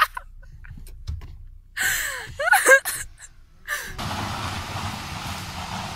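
Low rumble inside the car, then short excited gasping cries from the passengers about two seconds in. After a cut, about four seconds in, a steady outdoor rushing noise with a low rumble, as the SUV moves off up the gravel driveway.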